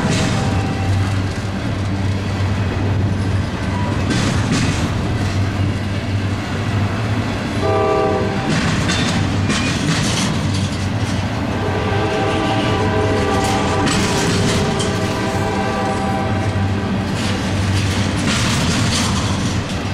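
Double-stack intermodal well cars rolling steadily past on jointed track, with a continuous low rumble and repeated wheel clatter. A diesel locomotive's air horn sounds at the start, again briefly about 8 seconds in, and for several seconds in the second half.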